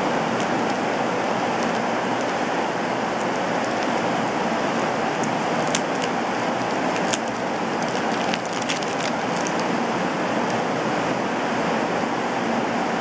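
Steady hiss of rain, loud and even throughout, with a few sharp crinkles of a plastic bag being unwrapped by hand, most clearly around the middle.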